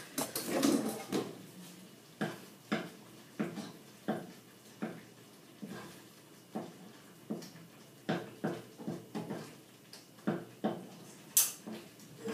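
Kitchen utensils and cookware clinking: a string of irregular knocks and taps, about one or two a second, with one sharper clink near the end.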